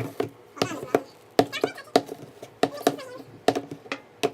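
Irregular sharp knocks and clicks of a stirring stick working through slime in a bucket, with a few short wordless voice sounds in between.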